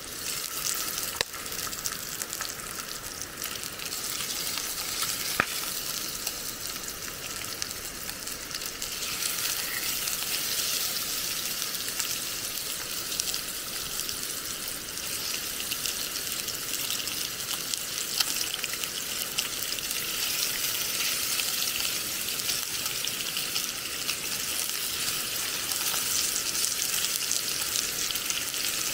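Food frying in a hot Coleman cast-iron pan: a steady sizzling hiss with fine crackle that grows louder about nine seconds in. There is a sharp click about a second in and another about five seconds in.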